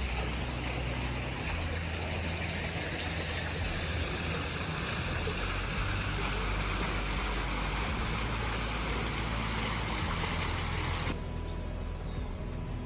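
A steady rushing noise, like running water, over a low steady hum; the rushing cuts off suddenly about eleven seconds in.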